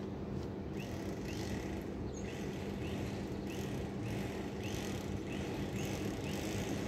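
Steady city ambience of distant traffic rumble with a constant low hum, over which a bird gives short rising chirps about twice a second.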